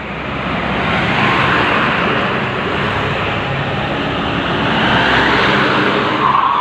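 Road traffic noise: a motor vehicle's engine and tyre noise passing close by.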